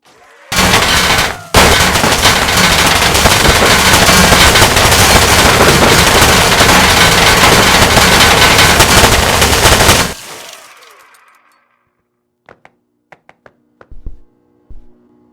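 Fully automatic gunfire: a short burst, a brief break, then one unbroken burst of about eight and a half seconds that cuts off and trails away. A few sharp clicks follow near the end.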